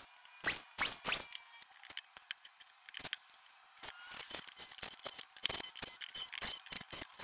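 Cordless drill driving screws through flat metal mending plates into 2x4 boards: a run of sharp clicks, coming faster from about halfway through, with brief whines of the drill motor.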